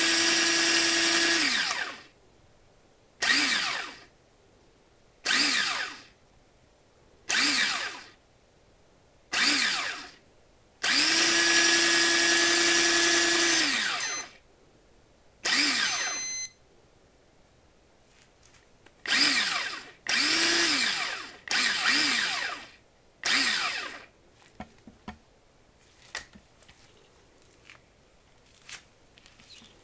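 Shimano TM4000H electric fishing reel's motor winding line in. It runs as a steady whine for about two seconds, then in a string of short spin-ups about every two seconds, each rising then falling in pitch. It runs steadily again for about three seconds around eleven seconds in, followed by more short bursts. After about 24 seconds only a few light handling clicks remain.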